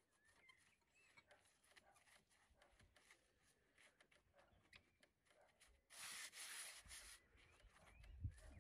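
Gloved hands pressing and rubbing soil around a rhododendron planted in a stone urn: a faint scratchy rustling, with a louder rustle lasting about a second about six seconds in.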